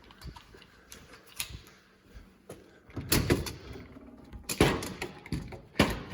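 Irregular knocks, clicks and thumps of things being handled, with louder clunks about three seconds in, near the five-second mark and just before the end.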